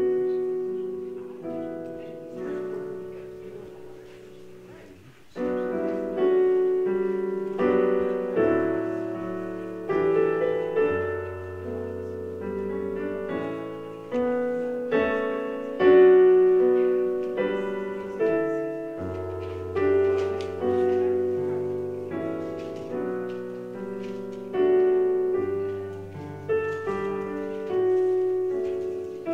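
Solo piano playing slow, sustained chords over a low bass line, each chord struck and left to fade before the next. It begins out of silence.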